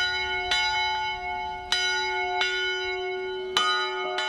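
Church bells struck one at a time at an uneven pace, about six strikes of differing pitch, each note ringing on and overlapping the next as it fades.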